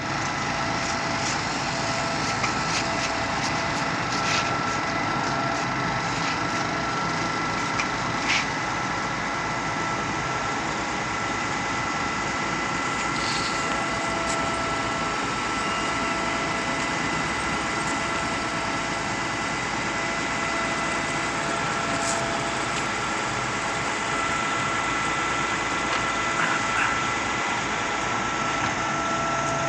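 Concrete pump running steadily: a continuous machine noise with a constant whine and a few faint clicks and knocks.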